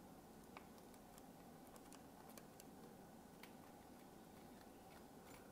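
Near silence with a few faint, scattered clicks of tweezers picking at the thin metal plates and clear plastic film insulators of a dismantled film variable capacitor.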